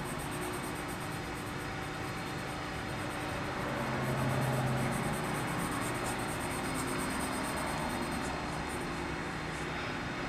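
A steady low mechanical drone, swelling a little about four seconds in and easing off again.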